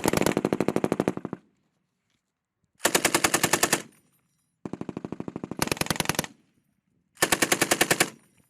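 Belt-fed machine gun firing four short bursts of automatic fire, each lasting about a second, with short pauses between them; the first burst is already under way and stops about a second in.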